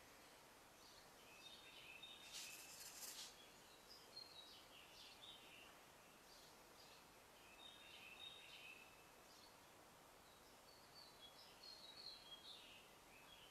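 Near silence with faint, scattered bird chirps in the background and a brief hiss about two and a half seconds in.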